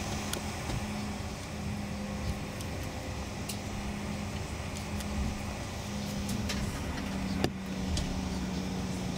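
Cabin noise of a Bombardier CRJ900 taxiing, heard from inside: its rear-mounted turbofan engines at low taxi thrust give a steady hum over a low rumble. Scattered light clicks and rattles run through it, with one sharper knock about seven and a half seconds in.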